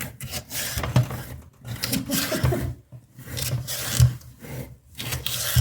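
Knife cutting vegetables on a wooden cutting board: irregular scraping and chopping strokes with short pauses between them.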